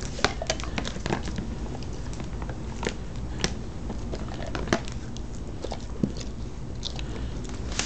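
Irregular clicks, taps and light scraping as a Bernese mountain dog in a clear plastic medical cone tries to get at a dental treat on a hardwood floor: the cone's rim and the treat knock and rub on the boards, with some biting at the treat.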